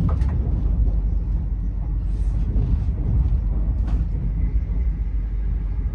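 Passenger train running at speed, heard from inside the carriage: a steady low rumble with a few brief hisses.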